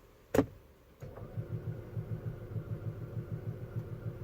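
Audi Q5 engine cranking on the starter without catching: a steady rhythmic chugging, about five to six beats a second, starting about a second in after a single click. The crank/cam correlation fault behind it (code P0016) may be timing related, which the owner suspects is a stretched timing chain.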